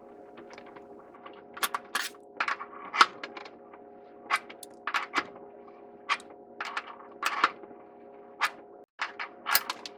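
Metal wrenches clinking and knocking against the pipe fittings of a water heater's cold water supply line as it is unscrewed: irregular sharp clicks scattered throughout, over a faint steady hum.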